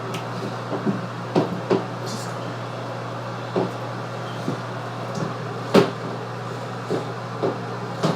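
Irregular light knocks and clicks of small objects being handled, over a steady low hum; one sharper knock comes a little past the middle.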